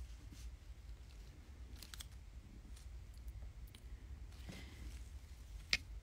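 A few faint, sharp clicks from small items being handled, the sharpest near the end, over a low steady hum.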